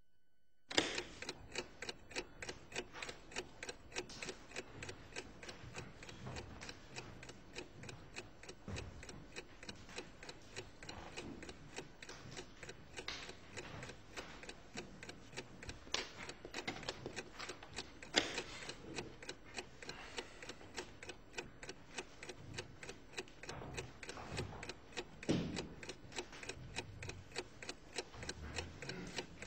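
Clock ticking in a fast, even rhythm, with a few louder clicks standing out now and then.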